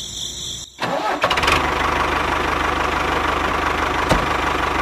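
Small electric motor in a homemade toy tractor water tanker starting up about a second in, then running with a steady whirr and a fast, even flutter.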